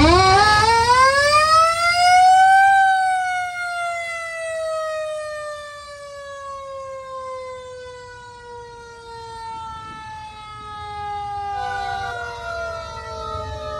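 A siren wailing: its pitch climbs for about three seconds, then winds slowly down over the next nine, and a second wail starts near the end.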